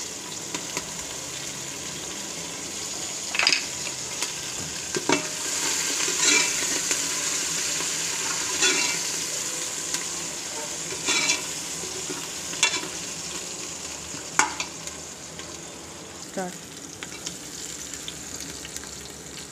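Onions, ginger-garlic paste and green chillies sizzling in hot oil in a metal pot, stirred with a metal ladle that scrapes and clinks against the pot every second or two. The sizzle swells a few seconds in and eases off near the end.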